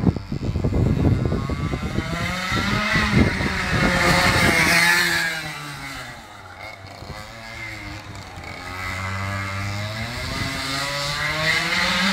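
100 cc go-kart engine revving as the kart laps the circuit, its pitch rising and falling through the corners; it grows quieter and lower about halfway through, then climbs and gets louder again near the end.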